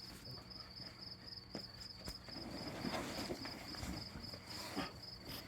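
Insect chirping steadily, a high, evenly pulsed trill several pulses a second, with faint scuffs and rustles under it.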